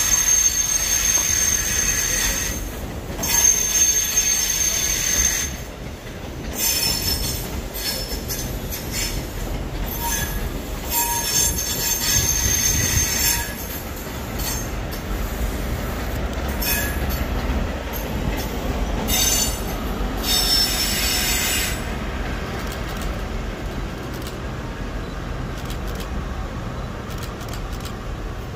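CrossCountry High Speed Train coaches rolling slowly through the station curves with wheel flange squeal. High-pitched squeals come and go over a low rumble of wheels on rail. The squealing dies away after about 22 seconds, leaving a steadier rumble.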